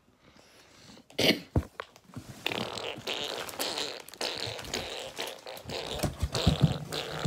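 Handling and scraping of a cardboard box: two sharp knocks about a second in, then continuous irregular scuffling and rustling with small clicks.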